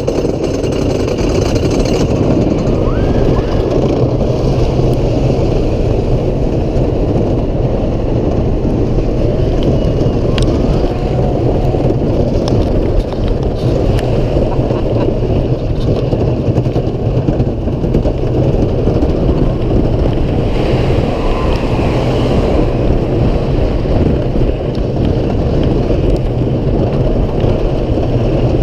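Wooden roller coaster train, a Great Coasters International double-track racer built of Southern Yellow Pine, running at speed down its drop and through the course. Its wheels make a loud, steady rumble on the wooden track, mixed with wind rushing past the ride camera.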